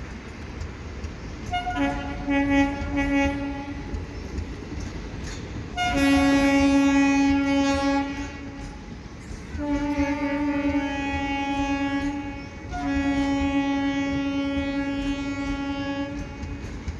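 Indian Railways passenger train sounding its horn: four long blasts of two to three seconds each with short gaps between, the second the loudest, over the steady rumble of the moving train.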